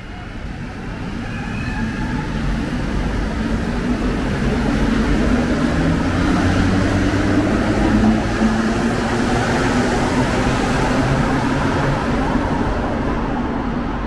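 Azur (MPM-10) rubber-tyred metro train pulling out and accelerating past: its running rumble and motor hum build over the first five or six seconds, then stay loud as the cars go by.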